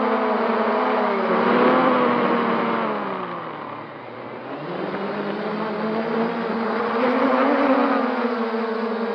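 MJX Bugs 3 quadcopter's brushless motors and propellers whining steadily. About three seconds in, the pitch glides down and the sound fades as the motors slow. It then rises again as they speed back up.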